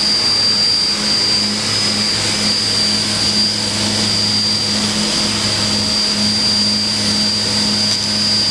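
Haas VF-7/50 CNC vertical machining center running under power: a steady low hum with a constant high-pitched whine on top.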